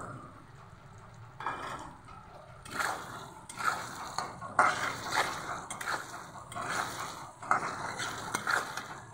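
Steel spatula scraping and stirring chopped tomatoes into frying masala in a pan, in irregular strokes, over a faint sizzle of hot oil.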